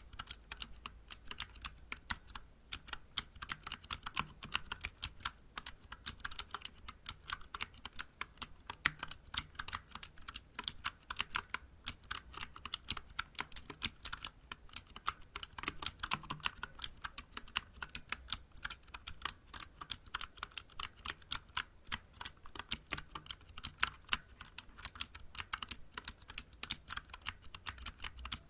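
Continuous typing on a Vortex Vibe mechanical keyboard with clicky Cherry MX Blue switches and SA-profile keycaps: a steady stream of sharp key clicks, several a second.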